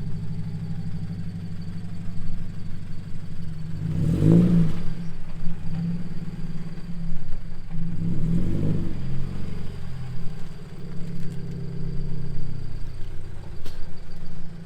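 Scion FR-S flat-four engine running through a Greddy Remark exhaust, its revs rising and falling twice, about four and eight seconds in.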